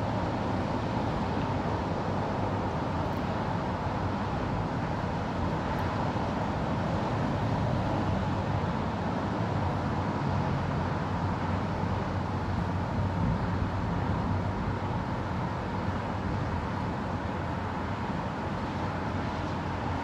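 Steady hum of road traffic below, a constant wash of passing cars with no single vehicle or event standing out.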